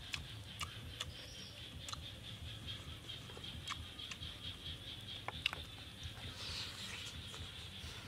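Close-up eating sounds from chewing roasted chicken leg: wet smacking and small crunchy clicks at irregular intervals, the sharpest about five and a half seconds in. A steady high-pitched drone runs underneath.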